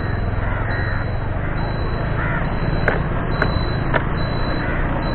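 Motorbike engine running with steady wind rush on a handlebar-mounted action camera while riding, and three sharp knocks in the second half.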